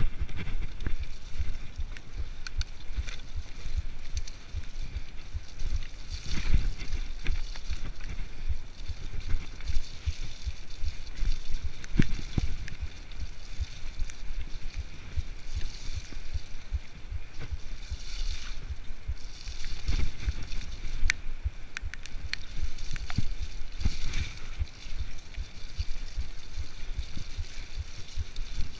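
Kona full-suspension mountain bike ridden fast down a dirt forest trail: wind buffeting the camera microphone over the rumble of the tyres, with irregular rattles and knocks as the bike rolls over bumps and roots, and a few sharp clicks.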